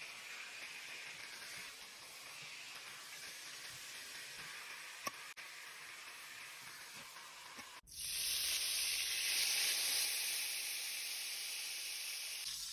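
Marinated chicken pieces frying and sizzling in oil in a pan, with one sharp tick about five seconds in. About eight seconds in it cuts to a louder, brighter sizzle as a liquid bubbles hard and steams in the hot pan.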